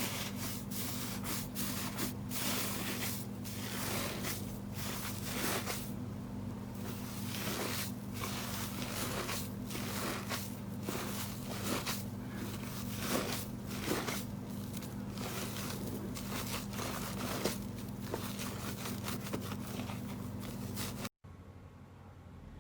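Slime being squeezed and pressed by hand, a run of short, irregular crackling squelches over a steady low hum; the sound stops abruptly near the end.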